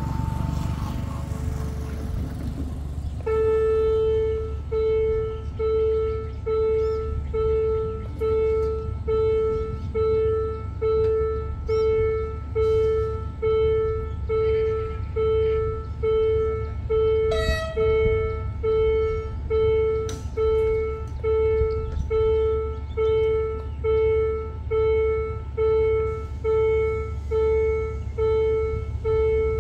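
Railway level-crossing warning bell starting about three seconds in: a single electronic ding repeated evenly, about four times every three seconds, signalling an approaching train. A steady low rumble lies underneath, and there is one brief higher sound just past halfway.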